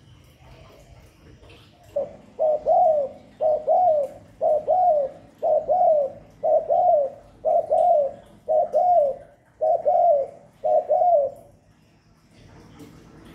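Spotted dove cooing: a run of about ten low two-part coos, roughly one a second, which starts about two seconds in and stops about two seconds before the end.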